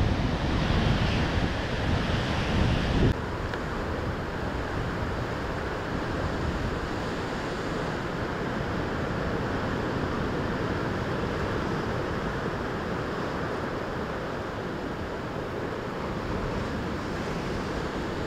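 Heavy ocean surf, waves breaking and churning, with wind rumbling on the microphone. About three seconds in it changes abruptly to a steadier, softer wash of surf against rocky shore.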